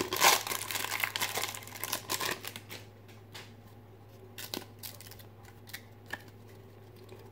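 Foil trading card pack wrapper crinkling and tearing as it is opened, dense for about the first three seconds, then a few scattered light clicks of handling. A steady low hum runs underneath.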